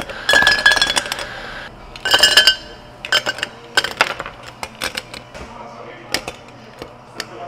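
Ice cubes poured from a metal scoop into tall drinking glasses, clattering and clinking against the glass in two loud pours within the first few seconds, then lighter scattered clinks as the cubes settle.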